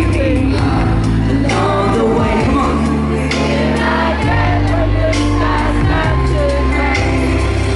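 Live pop band playing loud through the venue's PA, with a male lead singer over acoustic guitar and held bass notes that change every second or so.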